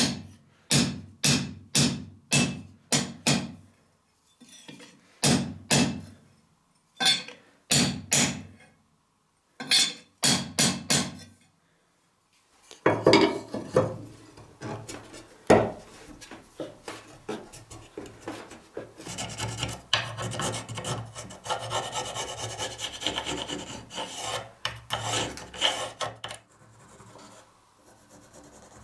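Hammer blows on metal tube pins set in a steel cleaver tang on an anvil: runs of sharp strikes, several a second, for about the first eleven seconds. After a short pause comes a long stretch of dense scraping and rubbing on wooden handle scales, and near the end faint pencil scratching on wood.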